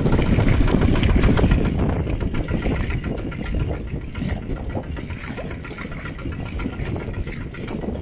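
Mini tractor engine running with a rapid, even chugging, loudest for the first second or two and then settling a little lower.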